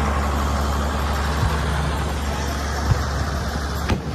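Steady low drone from a running engine under crowd noise, with three short pops about one and a half, three and four seconds in.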